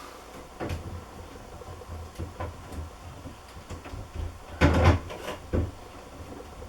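Channel lock pliers being handled and set on a washing machine's hose fitting at the cold-water tap: scattered light metal clicks and knocks, with a louder clatter about two-thirds of the way through.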